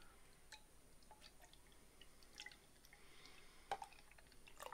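Faint sounds of beer being poured from a can into a tilted stemmed glass: small drips and trickles, with a light click a little over halfway through.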